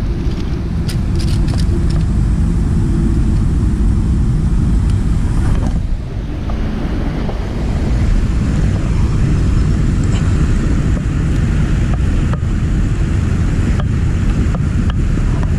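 Steady wind buffeting the microphone, a loud low rumble, with a few sharp clicks about a second in and again near the end.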